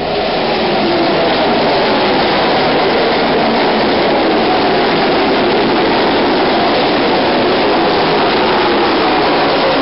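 Full-bodied ARCA stock cars' V8 engines running at racing speed as a pack of cars goes by. Their engine notes fall in pitch one after another as each car passes.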